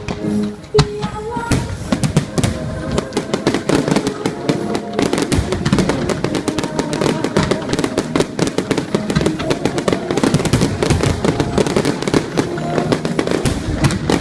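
Aerial fireworks going off: a few single bangs, then from about a second and a half in, a dense, rapid run of bangs and crackles. Music plays underneath.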